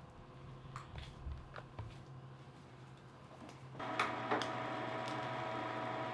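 Faint squishing of ground meat worked by gloved hands, then about four seconds in a LEM electric meat grinder starts running with a steady whine, regrinding the seasoned meat and jalapeno mix. A couple of knocks come as meat is pushed down into the hopper.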